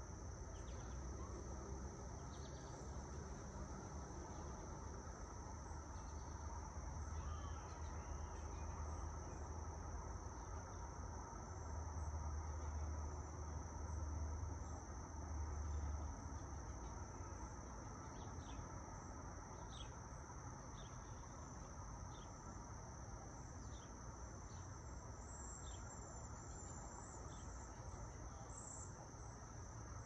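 Steady high-pitched insect drone from a summer chorus of cicadas and crickets, unbroken throughout. Underneath it runs the low rumble of light distant traffic, which swells for a few seconds in the middle. A few short faint chirps are scattered through.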